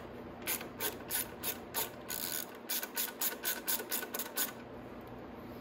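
Socket ratchet wrench clicking as a 10 mm bolt holding a motorcycle's plastic side fairing is loosened: a run of quick ratchet clicks that stops about four and a half seconds in.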